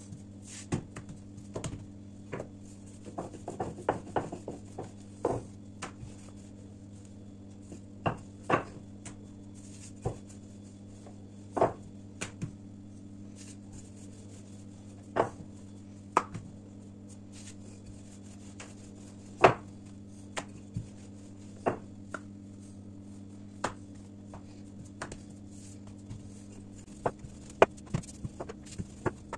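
Dough being pressed flat by hand and rolled out with a wooden rolling pin on a tabletop: scattered, irregular knocks and taps, over a steady low hum.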